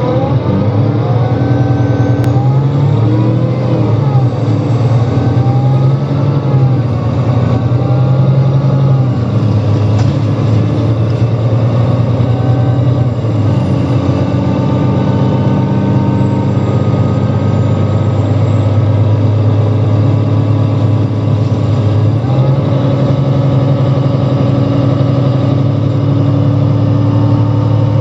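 Alexander Dennis Enviro500 MMC Euro 5 double-decker bus with a ZF automatic gearbox, driving along, its engine note stepping up and down every few seconds as it pulls away and shifts gear. A faint, thin high whistle wavers above it throughout; the bus's sound as a whole is called strange.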